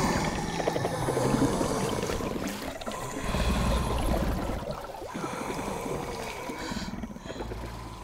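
Film creature sound design for the amphibian man struggling in a bathtub: guttural, rasping breaths and growls built from layered human breath and voice performances. Loudest at the start and fading away.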